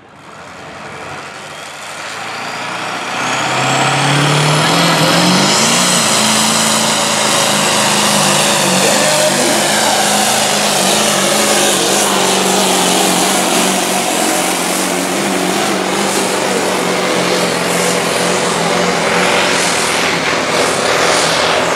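Diesel pickup truck engine at full throttle pulling a weight-transfer sled. The revs climb over the first few seconds with a high whine gliding up, then the engine runs flat-out and steady under load.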